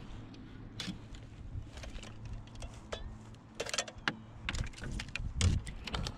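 Scattered clicks, taps and knocks of a small, just-landed pickerel being unhooked over an aluminum canoe floor, with the fish and tackle knocking against the metal hull. The knocks grow thicker and louder over the last two or three seconds.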